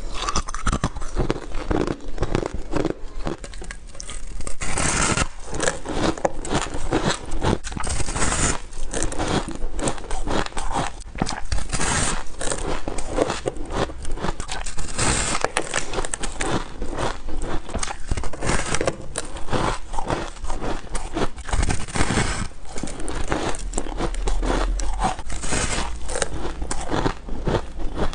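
Ice being bitten and crunched close to the microphone: a continuous run of crisp cracks and crunches, with louder bites every few seconds.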